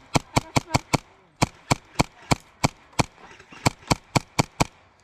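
Airsoft gun firing a rapid string of sharp single shots, about four a second, in three runs broken by brief pauses after about a second and again a little past three seconds.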